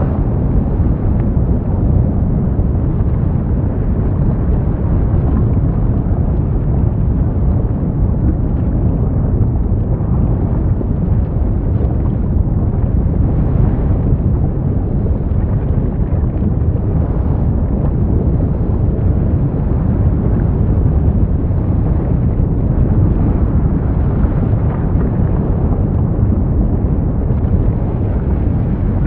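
Deep, steady rumbling roar of an erupting volcano, its lava fountaining and flowing, with no distinct blasts.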